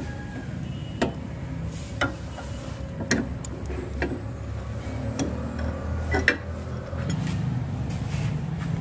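Sharp metallic clicks about once a second, with a pair near the middle, as a rack-end tool is worked on the steering rack's inner tie rod, over a steady low hum.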